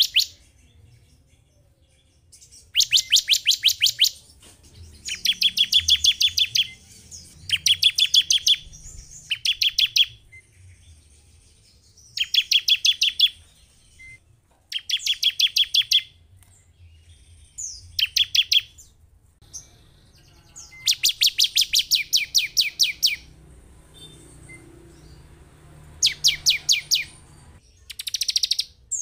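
Bar-winged prinia (ciblek) calling: about ten bursts of rapid, evenly repeated high chip notes, each burst one to two seconds long, separated by short pauses.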